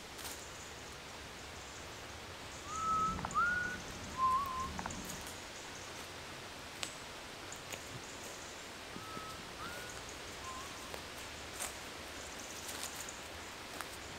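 A person whistling a short three-note phrase: a rising note, a slightly higher one, then a lower wavering one, about three seconds in. The same phrase comes again more faintly about nine seconds in, over a steady outdoor hiss with scattered small clicks.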